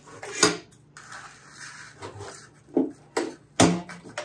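Coleman Fold N Go portable propane stove being folded shut: the two halves of its case knock and clack together several times, the loudest knocks about half a second in and near the end as it is clamped closed.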